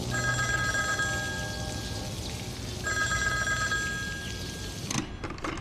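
Telephone bell ringing twice, each ring lasting about two seconds with a short pause between, before the call is answered.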